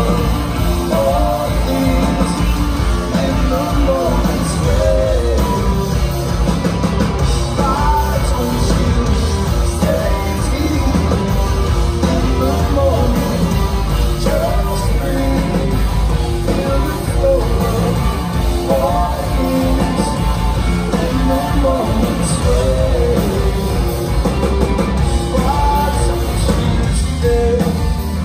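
Rock band playing live: electric guitars, bass and drum kit, with a male lead vocal singing over them.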